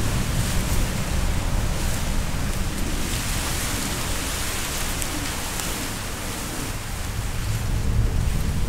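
Wind blowing hard, a steady rushing noise with a low, uneven rumble of gusts hitting the microphone. It swells about halfway through and again near the end.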